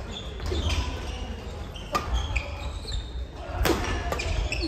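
Badminton rally: sharp racket strikes on the shuttlecock, about two seconds and three and a half seconds in, with shoes squeaking on the wooden court floor and a steady low hum of the hall.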